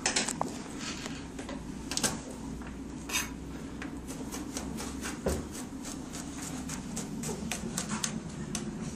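Kitchen knife chopping garlic on a plastic chopping board: scattered taps at first, then quick, fairly regular chopping at about three or four strokes a second. A steady low hum runs underneath.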